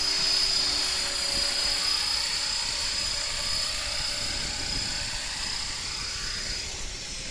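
Align T-Rex 500 flybarless RC helicopter running on the ground: a steady high whine from its electric motor and drive, with the whir of the spinning rotor blades. The whine fades near the end.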